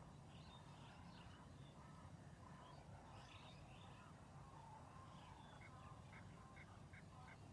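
Faint outdoor ambience with scattered distant bird chirps, and a run of about six short, evenly spaced high notes near the end.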